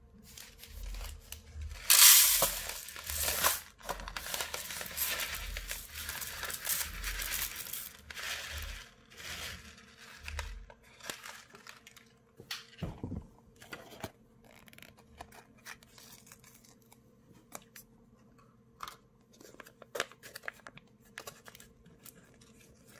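A plastic packet of dry rice torn open with a loud rip about two seconds in, then several seconds of crinkling and rustling as the rice is poured into an aluminium foil tray. After that only scattered faint crinkles and taps of packaging being handled.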